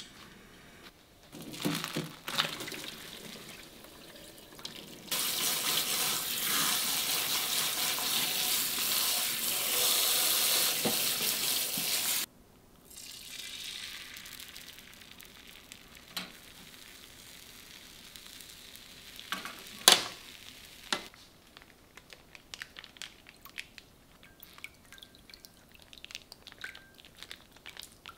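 Kitchen tap running steadily for about seven seconds, then shut off abruptly. Scattered knocks and clicks of kitchenware come before and after, with one sharp knock about twenty seconds in and light tapping near the end.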